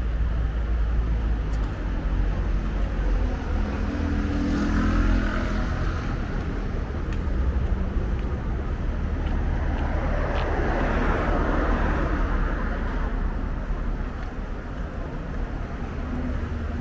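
City road traffic: a steady low rumble of passing cars, with one vehicle swelling up and fading away about ten to thirteen seconds in.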